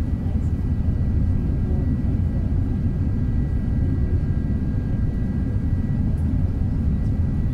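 Steady low rumble of cabin noise inside an Airbus A380-800 in flight, from its four Rolls-Royce Trent 900 turbofans and the air rushing past the fuselage, with a faint steady high tone over it.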